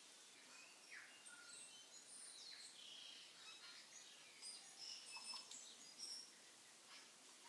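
Near silence, with faint scattered high chirps of birds.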